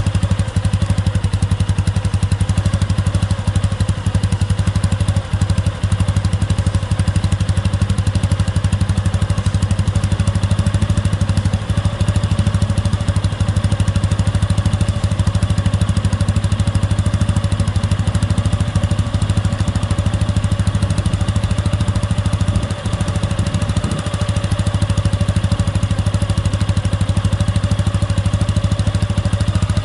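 Suzuki Gixer 150 single-cylinder four-stroke engine idling steadily through a BEAMS CORSA-EVO II stainless full-exhaust silencer, an even low beat that barely changes, with a few brief flickers in the idle.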